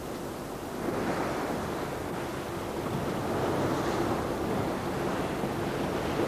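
Choppy sea water washing and splashing, with wind buffeting the microphone; the wash swells about a second in and again past the middle. A faint steady hum runs underneath.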